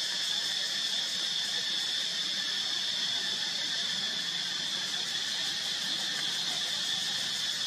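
Steady, high-pitched chorus of insects, an unbroken drone.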